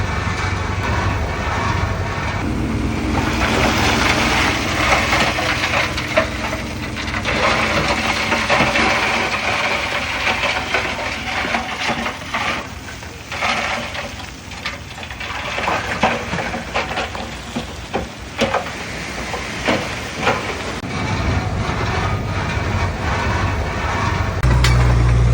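Heavy earthmoving machinery at work: a diesel engine running under a long rush of noise, with scattered clanks and knocks through the middle. A louder, steady engine sound comes in just before the end.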